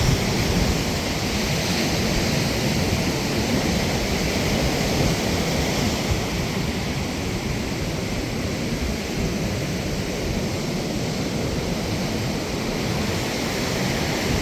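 Steady wash of ocean surf on a sandy beach, with wind rumbling on the microphone.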